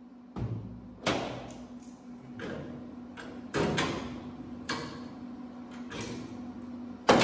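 Metal tool knocking and tapping on the sheet-metal edge of a truck bed panel being worked by hand: about a dozen irregular sharp strikes, each ringing briefly, the loudest one near the end.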